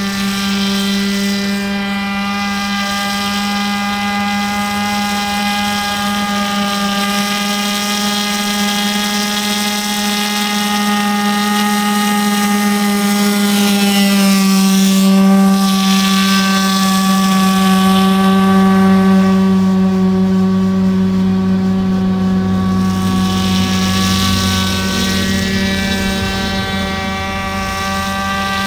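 Small nitro glow engine on a radio-controlled airboat, running at high revs with its air propeller: a steady high-pitched buzz. About halfway through it gets louder and its pitch drops slightly as the boat passes close by.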